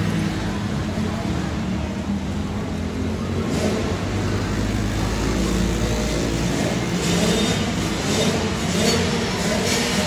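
Several youth ATV engines running and revving as the quads race on a dirt flat track, the pitch rising and falling as they accelerate and back off.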